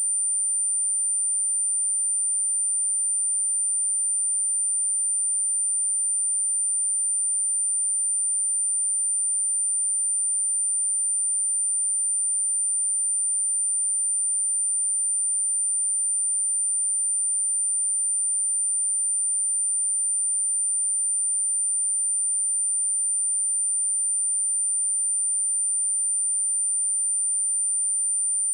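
A steady, unbroken 9102 Hz sine-wave test tone: a single high-pitched pure tone held at one pitch and level, played as a speaker cleaning tone to shake water and dust out of a speaker.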